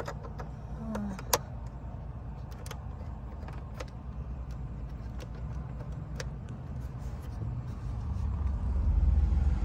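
Sharp plastic clicks and taps of fingers on a car's overhead console and SOS button cover, the loudest about a second in, over a steady low rumble that grows louder near the end.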